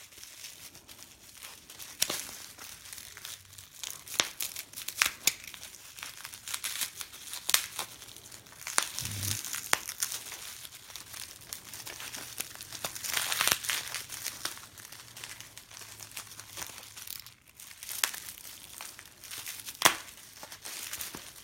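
Paper and plastic packaging crinkling and rustling as it is handled and opened, with many irregular sharp clicks and taps.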